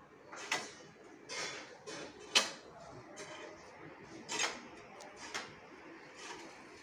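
Short-handled hoe blade scraping and chopping into a heap of soil mix, in about five separate strokes, the loudest about two and a half seconds in.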